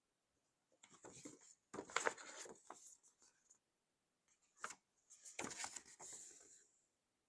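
Faint rustling of a paper leaflet being handled and unfolded, in several short bursts with silent gaps between them.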